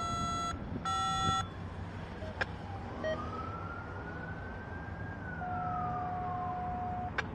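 Two short horn blasts about a second apart, then a distant siren that slowly rises and falls in pitch, over the steady low running of an idling NYSW SD-series diesel locomotive.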